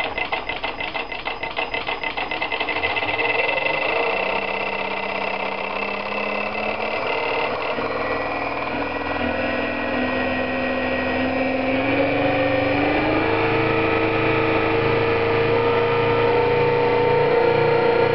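Home-built bench machine of DC motor-generators driving aluminium wheels starting up: a fast ticking that speeds up and blurs together within the first few seconds, then a steady mechanical hum and whine that climbs slowly in pitch as the wheels spin up, with a step up about two-thirds of the way through.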